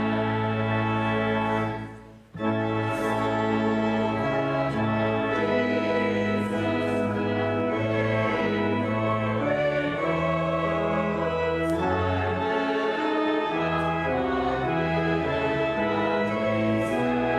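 Rebuilt church organ playing sustained chords that change every second or so, with a brief break about two seconds in.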